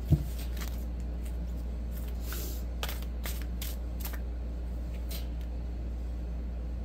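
Tarot cards being shuffled by hand: scattered soft card flicks and riffles, with one low thump just after the start, over a steady low hum.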